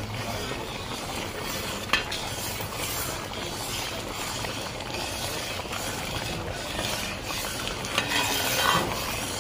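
A steel ladle stirring a pot of milky liquid cooking on the stove, over a steady hiss. The ladle clinks sharply against the pot about two seconds in and again near the end.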